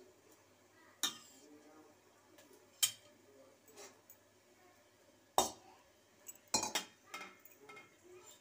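Steel ladle clinking against a stainless steel pot: sharp single knocks a second or two apart, then a quick cluster of clinks near the end.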